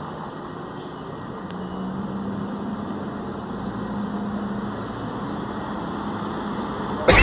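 Gontijo intercity coach's engine running as it pulls away up the street, over a steady wash of street traffic, with a low hum in the middle and the level slowly rising. A sudden loud rush of noise cuts in at the very end.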